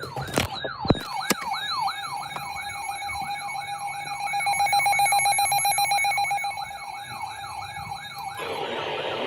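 Electronic siren on a fast yelp, rising and falling about three times a second, with a steady second tone over it. Near the end a harsh, screechy burst of about a second and a half cuts in, typical of an EAS digital header burst.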